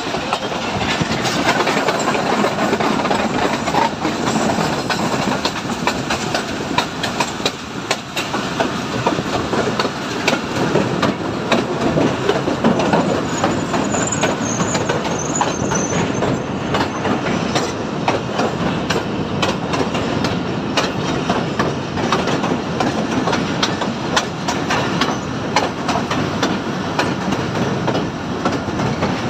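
Pakistan Railways Subuk Raftar Express railcar running along the track, heard from on board: a steady rumble of motion with constant clicking and clatter from the wheels on the rails.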